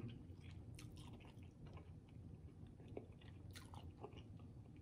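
Faint, soft chewing of roasted turkey leg meat with closed mouth, with scattered small mouth clicks.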